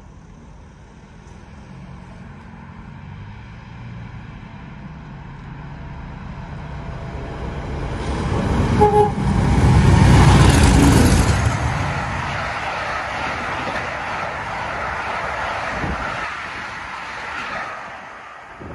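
A GBRf-liveried Class 50 diesel locomotive, its English Electric 16-cylinder engine working, approaches and passes at speed hauling a train, with a short horn note as it comes by. The sound builds to its loudest about ten seconds in, then the carriages' wheels rumble past on the rails and fade near the end.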